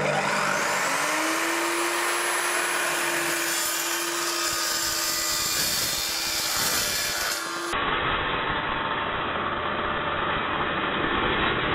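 DeWalt DW872 dry-cut metal chop saw spinning up with a rising whine, then its 355 mm carbide-tipped blade running at a steady pitch while it cuts through a slotted steel C-profile. About eight seconds in, the sound abruptly turns duller and lower.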